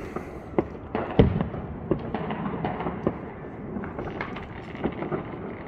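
Distant fireworks and firecrackers going off at irregular intervals: scattered bangs and pops, the loudest a little over a second in.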